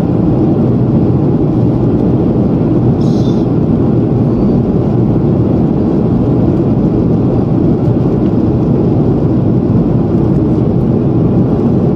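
Steady, even cabin noise of a jet airliner in flight, heard from a window seat over the wing: engine and airflow noise with no change in pitch or level.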